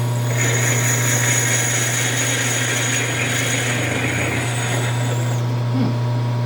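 Hardinge HLV lathe running with a steady low hum while the parting tool cuts into the spinning ring: a hissing cutting noise with a thin high whine starts about half a second in and stops about five seconds in. The cut is not going smoothly, which the machinist puts down to the tool reaching the drilled and tapped bolt holes, an interrupted cut.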